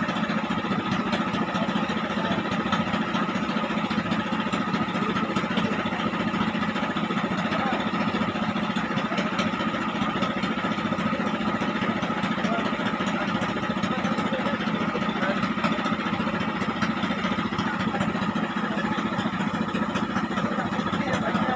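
An engine running steadily, an even drone that holds the same speed throughout.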